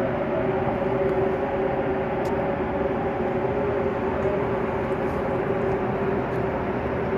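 Strong sandstorm wind rushing against a high-rise window, with a steady low whistling tone running through it.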